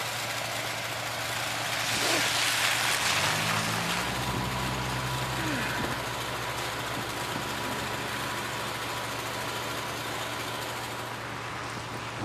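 A motor vehicle engine running steadily over a rushing noise, with a louder rush about two seconds in.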